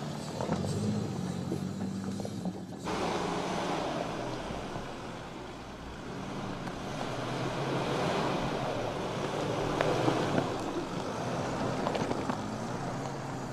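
Mercedes-Benz off-road vehicle crawling over rocky ground, its engine running low and steady while the tyres crunch and click over stones and gravel. About three seconds in, the sound changes abruptly to a heavier low rumble.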